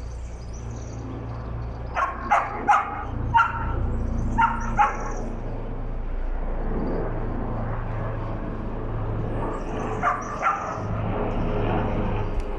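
A dog barking: six short barks over about three seconds, then two more later on, over a steady low hum.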